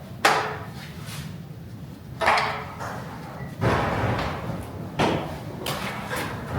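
About six separate knocks and clunks, spaced a second or so apart, of items being set into and shifted around a metal carrier during test fitting; the loudest come near the start, about two seconds in and about three and a half seconds in.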